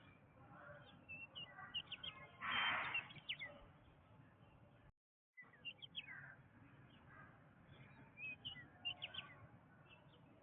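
Jungle ambience: many birds chirping and whistling in short, quick calls. About two and a half seconds in there is a louder burst of noise lasting about half a second, and near the middle the sound cuts out completely for about half a second.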